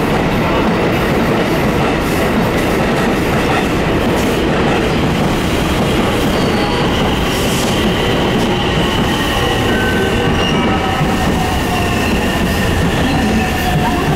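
Train running on the rails: a steady, loud rumble of wheels on track with rail-joint clatter, and faint thin tones that fall in pitch in the second half.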